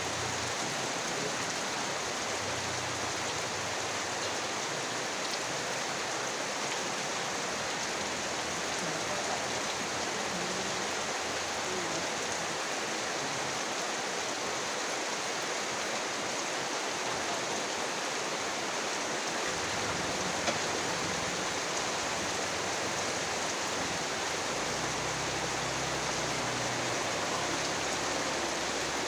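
Very heavy rain falling steadily: an even, unbroken hiss of downpour.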